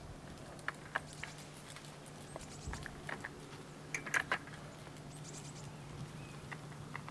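Light clicks and knocks as a spirit level and steel camera-dolly track rails are handled while the track is being levelled, in small clusters about one, three and four seconds in. A steady low hum runs underneath.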